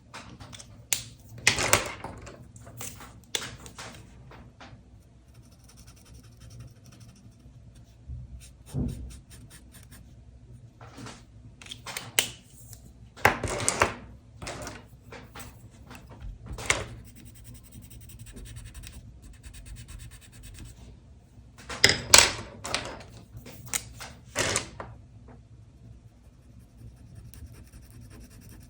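A drawing tool scratching across paper in separate short strokes, the loudest about a second and a half in, around the middle and again about two-thirds of the way through, with quiet gaps between.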